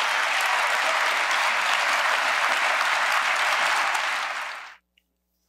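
Large audience in a legislative chamber applauding, a dense steady clapping that fades out and stops near the end.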